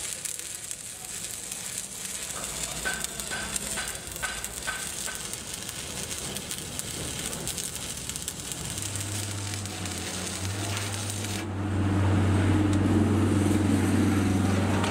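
Stick (shielded metal arc) welding on the steel of an excavator bucket: the arc crackles and sizzles steadily. A low hum comes in about nine seconds in and takes over, louder, near the end.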